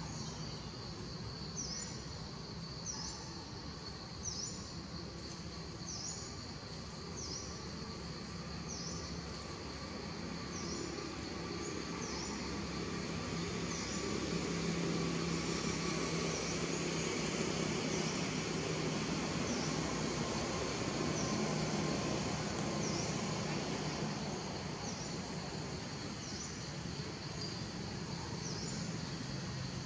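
Insects droning steadily at a high pitch, with a short chirp repeating about once a second. Underneath is a low steady rumble that grows louder in the middle.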